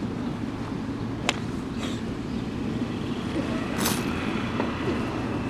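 Golf clubs in a bag clinking as a club is pulled out: one sharp click about a second in and a fainter one just after, then a brief rustle near four seconds, over a steady low outdoor rumble.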